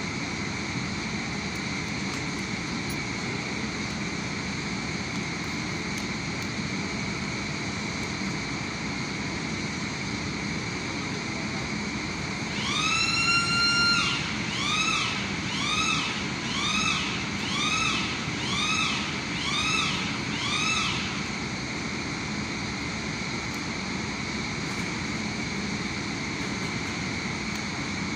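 A handheld power tool's motor whine: one longer run that rises and holds, then about seven short bursts about a second apart, each rising as it spins up and sagging as it is let off. A steady high machinery hum runs underneath.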